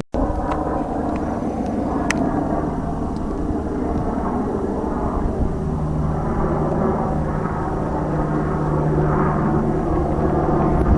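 A steady engine drone, an even low hum under a rushing noise, with no breaks or changes in speed.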